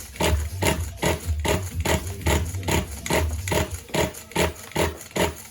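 Nitro RC car engine being pull-started with quick repeated pulls of the recoil starter, about two and a half strokes a second, turning the engine over without it catching.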